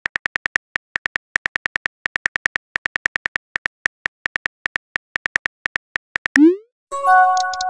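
Phone keyboard tap clicks from a texting-story app, a quick steady run of several taps a second with brief pauses, as a message is typed out. Near the end a short rising whoosh marks the message being sent, followed by a chime of a few notes.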